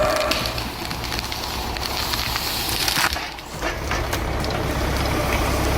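Wood cracking and splintering as a machine crushes and splits it, with sharp cracks throughout; a low engine rumble comes in at about four seconds.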